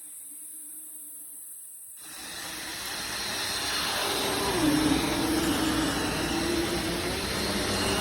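Bissell CleanView Swivel Rewind Pet upright vacuum cleaner running: a faint hum, then the motor noise swells about two seconds in and stays loud, with a droning tone that dips in pitch now and then.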